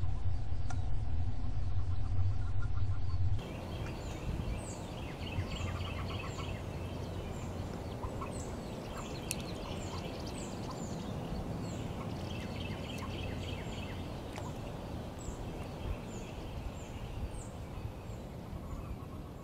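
A low rumble for the first few seconds cuts off abruptly into outdoor ambience, over which birds give many short, high, falling chirps.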